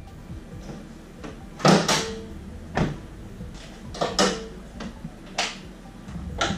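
Several separate knocks and clunks. The loudest comes a little under two seconds in, and there are others near the middle and near the end.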